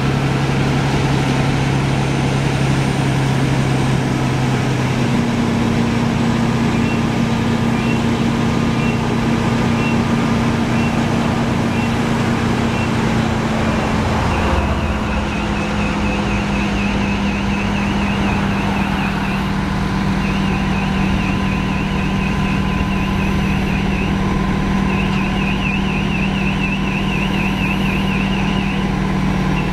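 Fire engine's diesel engine running steadily at the pump panel, its pitch stepping up about five seconds in as the revs rise for pumping. A faint high electronic beeping, then a warbling tone, sounds over it from about seven seconds on.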